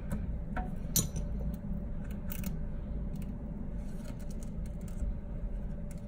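Scattered small clicks and taps of a plastic pry tool and a phone's screen and frame being handled, the sharpest click about a second in, over a steady low hum.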